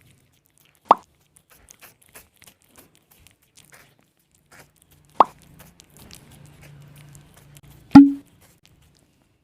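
Three sharp, loud plop-like pops a few seconds apart, the last with a short ringing tone. Faint soft clicks fall between them.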